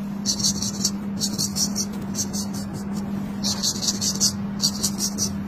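Straight razor shaving hair off a man's scalp: about six short strokes, each a rapid, crisp crackle of hair being cut, with brief pauses between. A steady low hum runs underneath.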